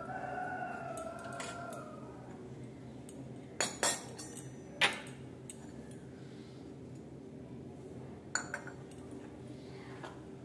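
Small metal puja vessels being handled and set down: a brief ringing that dips a little in pitch and fades over the first two seconds, then a few sharp clinks near the middle and one more later on.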